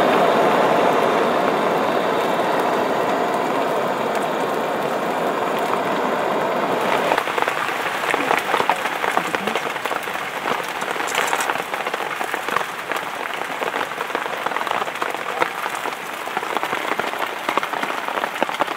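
Steady rain falling, a dense even hiss. About seven seconds in it turns into a grainier patter of separate drops.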